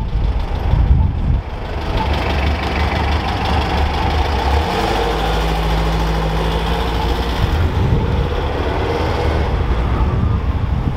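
Engine of a vintage Porsche 356 Speedster-style roadster running with a low rumble as it drives slowly away through an intersection, amid city traffic noise.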